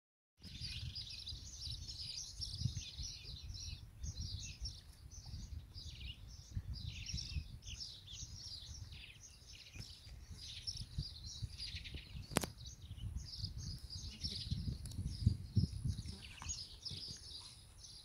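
Small birds chirping and chattering continuously, many short overlapping calls, over a low uneven rumble, with one sharp click about twelve seconds in.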